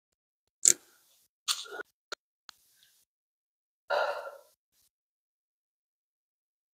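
A few short, separate handling and movement noises from hikers climbing over rock, such as shoe scuffs and breaths, with silence between them; the longest comes about four seconds in.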